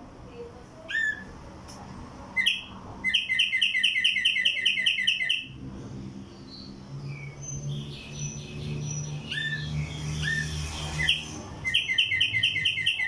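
Caged tumba yegua songbird singing: single sharp up-slurred notes, and two fast runs of repeated notes at about five a second, one about three seconds in and one near the end. A low steady hum sits under the song in the middle stretch.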